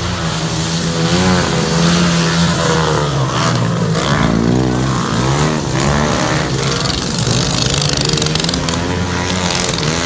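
Several racing ride-on lawn mower engines running together, their pitch rising and falling as they rev up and ease off around the track.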